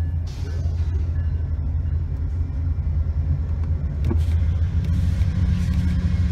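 Low, steady rumble of a passing train, growing a little louder about four seconds in, with one sharp click at that point.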